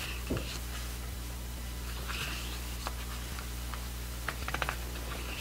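Pages of a photo book being turned by hand: soft paper swishes, a light thump just after the start, and a quick run of small paper ticks about four and a half seconds in, over a steady low hum.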